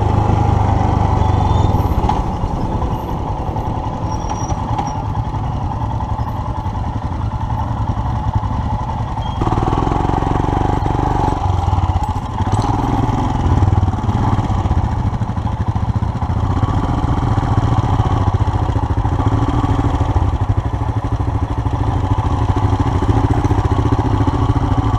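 2019 Royal Enfield Himalayan's single-cylinder engine running steadily while riding on a dirt road. Its note changes about nine seconds in.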